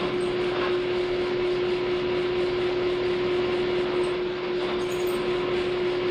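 Drill press running with a steady hum, its quarter-inch bit cutting dry, without cutting fluid, through stacked 1.5-inch square steel tube pieces.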